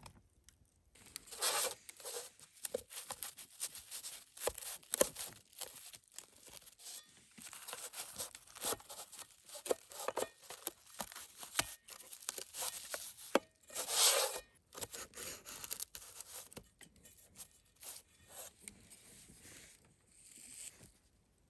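Crisp-crusted, freshly baked pizza being cut into pieces: a run of crackling, scraping and rasping strokes with small clicks, the longest and loudest about 14 seconds in, growing quieter near the end.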